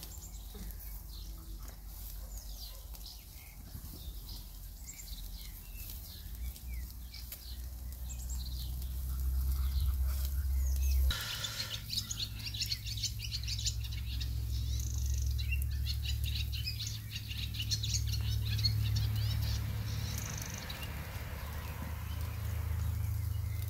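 Small birds chirping and twittering again and again over a low steady rumble; the chirping grows busier about halfway through.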